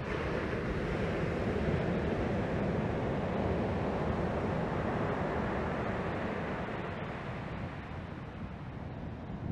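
Small ocean waves breaking and washing up a sandy beach, a rushing wash that swells over the first few seconds and then eases, over a steady low rumble of wind on the microphone.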